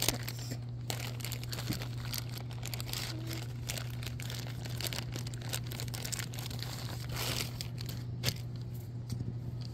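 Thin clear plastic bag crinkling and rustling as it is torn open by hand and a small beanbag plush toy is worked out of it, in irregular bursts of rustling.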